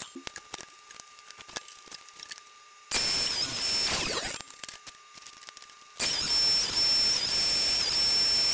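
Table saw running while it cuts a series of narrow kerfs in a poplar strip on a crosscut sled: a steady high whine that dips briefly as the blade bites each cut. It comes in for a second and a half about three seconds in, then again from six seconds on. Between these the sound is quiet, with light clicks of the wood being shifted on the sled.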